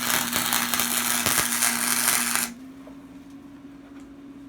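Electric welding arc crackling and sizzling in one burst of about two and a half seconds, cutting off suddenly; a steady hum runs underneath throughout.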